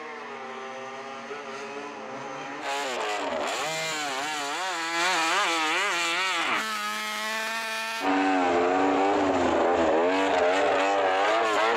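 Repsol Honda MotoGP racing motorcycle's engine revving, its pitch rising and falling in quick waves as the throttle is worked while the bike rides on snow. It gets louder in steps and is loudest from about eight seconds in.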